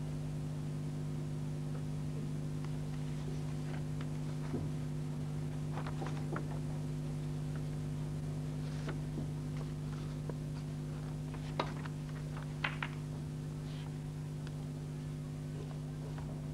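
Snooker balls clicking: a single sharp click about two-thirds through as the cue strikes the white, then a close double click about a second later as it hits the reds. A steady electrical hum runs under it from the old broadcast recording.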